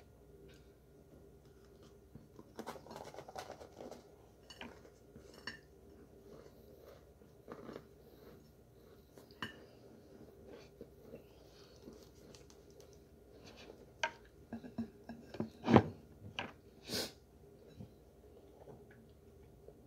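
Biting and chewing a baked brick of Argo cornstarch and wheat starch: soft, crumbly bites with faint crunches and scattered clicks, rather than a hard crunch. The bites come thicker and louder near the end, the loudest about three quarters of the way through.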